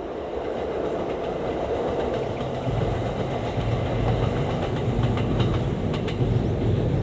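Kintetsu electric train passing at a distance: a steady rumble of wheels on rail that builds over the first couple of seconds, with a run of clicks from the rail joints in the middle.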